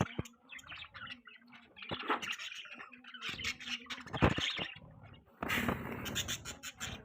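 Budgies chirping and chattering in several short bursts, with scattered sharp clicks among them.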